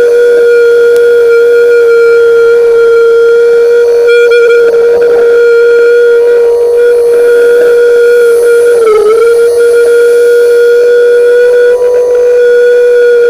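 Underwater propeller-polishing grinder running against a ship's propeller blade: a loud, steady whine whose pitch dips briefly about nine seconds in.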